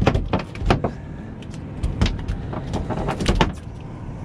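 A summer flounder (fluke) flopping and slapping on a boat deck: quick knocks and slaps in two flurries, one at the start and one about two seconds in, over a steady low rumble.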